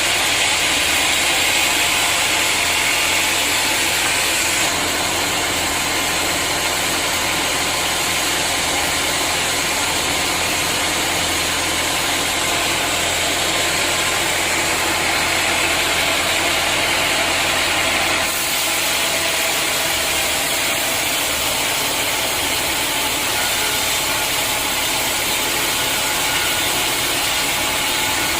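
Sawmill machinery running steadily, a loud even mechanical noise with a strong hiss, as a log is sawn into planks. The sound shifts abruptly twice, about five seconds in and again around eighteen seconds.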